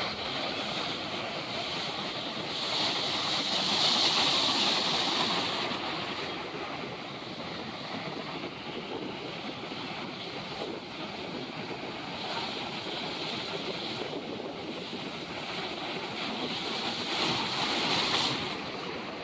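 Ocean surf breaking and washing in over rocks, a steady rushing that swells louder twice, a few seconds in and again near the end.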